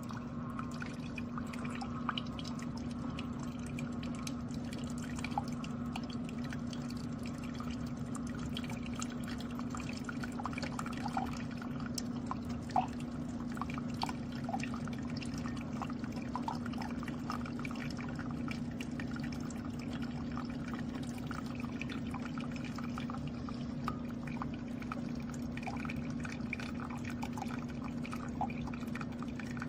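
Keurig K-Slim pod coffee maker brewing: the pump hums steadily while coffee streams and drips into the cup below, with small clicks and drips throughout.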